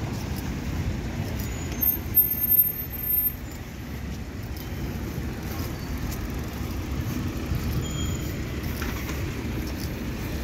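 City street traffic: a steady low rumble of passing cars, with a few brief louder sounds about two to three seconds in.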